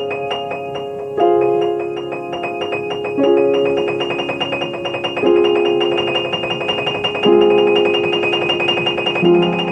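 Piano playing a fast, bell-like two-note alternation high up, over held chords that change about every two seconds.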